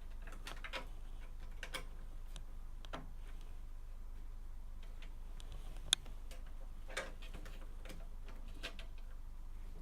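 Irregular light clicks and taps of cables and plastic connectors being handled and routed inside a computer case, with one sharper click about six seconds in, over a steady low hum.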